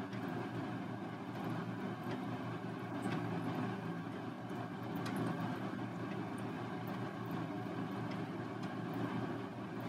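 A steady machine hum holding several low tones at an even level, with a few faint clicks over it.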